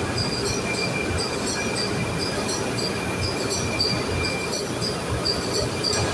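Steady din of a ship's engine room machinery running, with a constant high whine and high-pitched squeaks that come and go over it.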